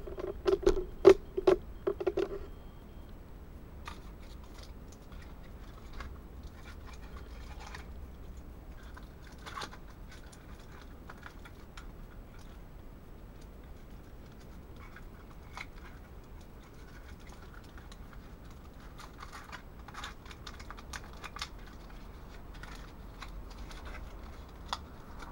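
Faint, irregular small clicks and ticks while a steel mug of water heats over a burning Esbit tablet in a small box stove. In the first two seconds a short burst of louder knocks over a brief hum.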